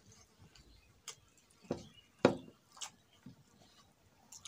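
Eating by hand: a handful of short, sharp clicks and smacks as fingers work rice on a steel plate and the food is chewed, the loudest a little past two seconds in.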